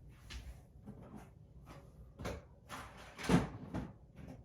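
Rummaging: a string of knocks and clatters as objects are shifted and handled while searching, the loudest few knocks falling between about two and four seconds in.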